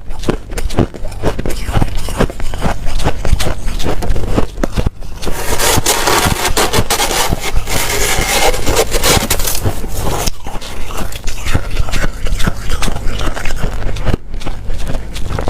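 Close-miked biting and chewing of white snow ice: rapid crisp crunches, turning into a denser, grinding crunch for several seconds in the middle before the separate crunches return.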